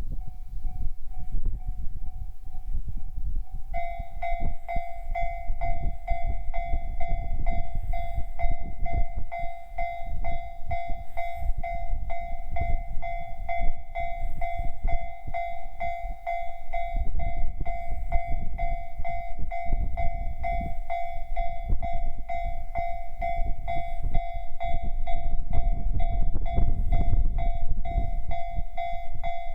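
Japanese railway level-crossing alarm of the JR standard electronic type ringing continuously in a rapid repeating two-tone clang; a second, slightly lower tone joins about four seconds in. A steady low rumble runs underneath.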